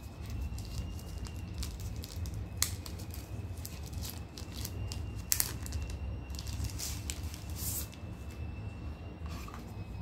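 Clear plastic protective bag crinkling as it is worked off a power bank by hand, with a sharp crackle a couple of seconds in, another about halfway, and a burst of crinkling soon after.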